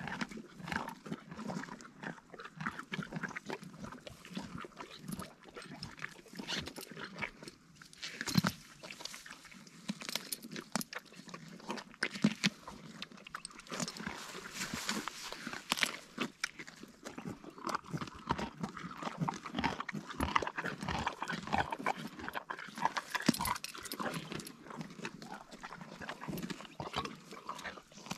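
Donkeys chewing watermelon rind and grass close to the microphone: a continuous run of crunching clicks.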